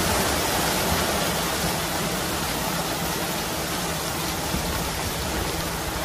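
Gravel pouring and sliding out of a raised tipper semi-trailer body onto a pile: a steady, even rushing hiss.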